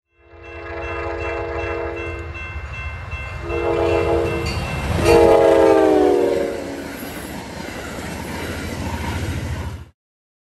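A train's air horn sounds three blasts: a long one, a shorter one, then the loudest, which drops in pitch as the train passes. Under the horn is the low rumble of the train running by, and everything cuts off abruptly near the end.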